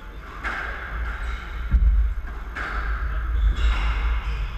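Squash ball being hit back and forth in a rally: a few sharp hits off racket and walls, each ringing on in the enclosed court, with a heavy low thud near the middle as the loudest sound.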